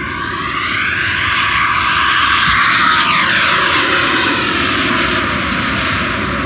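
Freewing Avanti model jet's 80 mm WeMoTec 11-blade electric ducted fan making a high-speed pass: a loud, high-pitched fan whine builds as the jet approaches, then drops in pitch as it goes by and moves away.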